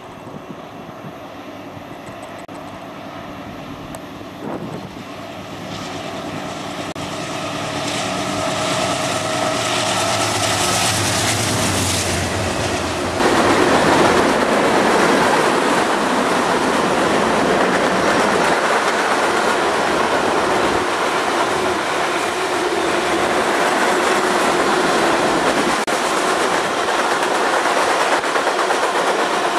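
BNSF diesel freight locomotives grow louder as they approach, their engines running with a steady drone. About 13 seconds in, the train's freight cars start rolling past with loud, steady wheel-on-rail noise and clickety-clack.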